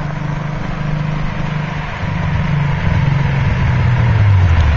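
Toyota Supra Mark II's engine running as the car approaches, getting louder from about two seconds in, its note sliding lower near the end.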